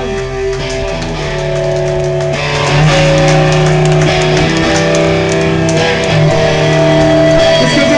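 Hardcore punk band playing live, with loud electric guitar chords and drums. The full band comes in louder a little under three seconds in.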